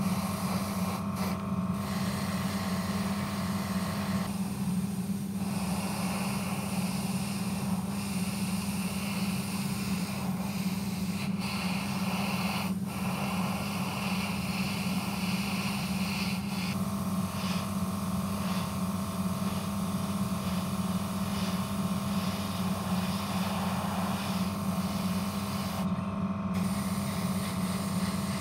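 Airbrush spraying black primer. Its air hiss shifts in tone around four seconds in and again past the middle, over a steady motor hum.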